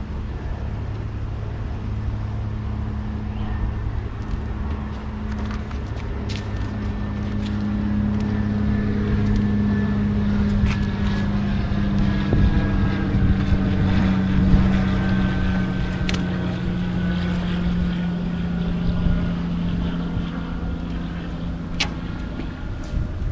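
An engine-like motor hum running steadily, its pitch drifting slightly and a little louder midway, with a few scattered light clicks.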